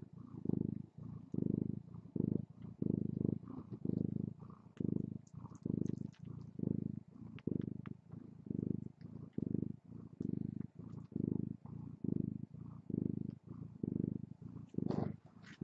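Nursing mother cat purring steadily in even pulses, about one and a half a second, rising and falling with each breath in and out. Faint clicks sound above the purr, and a brief higher sound comes near the end.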